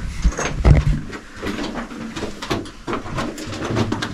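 Footsteps crunching and scuffing on the loose rubble floor of a narrow hand-cut rock tunnel: a string of irregular short crunches, with a few heavy low thumps in the first second.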